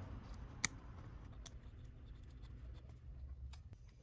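Small metal parts (screw, washer, nut) clicking and tapping against an aluminium plate as a diode holder is assembled by hand: one sharp click about half a second in, a softer one a second later, then a few faint taps, over a faint low hum.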